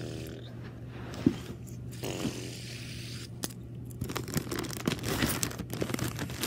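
Rustling and crinkling handling noise close to the microphone, growing dense and crackly from about four seconds in, over a steady low hum, with one sharp click about a second in.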